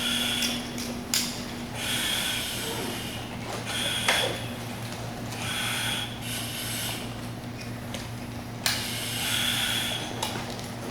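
Firefighter breathing through an SCBA face piece: the regulator hisses with each breath, about every two seconds, over a low steady hum, with a few sharp clicks and rattles of the air pack's straps and buckles.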